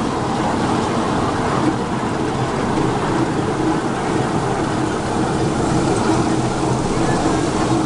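Small open-car park train running steadily along its track, heard from a rear passenger car: an even running noise of the train's wheels and drive.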